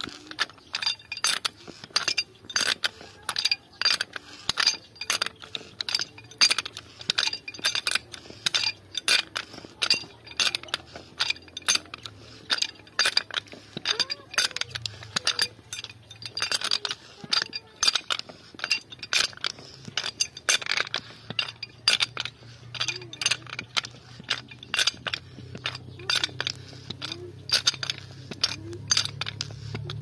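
Ratcheting hand pipe threader cutting a thread onto a 3/4-inch PVC pipe: the ratchet clicks sharply over and over, a few clicks a second, as the handle is worked back and forth.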